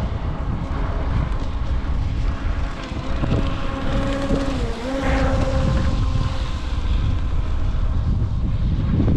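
Wind buffeting the microphone, with the distant whine of the UDIRC Arrow RC boat's electric motor at speed. The whine comes up for a few seconds in the middle and dips briefly in pitch partway through, with a throttle change.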